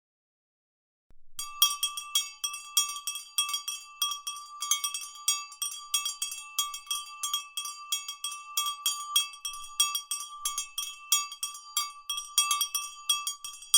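Bells ringing in rapid, uneven strikes, each note ringing on so the tones overlap; it starts about a second in, out of silence.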